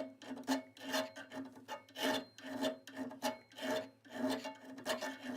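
Hand file being pushed in repeated strokes across metal, about two strokes a second, each a short rasping scrape.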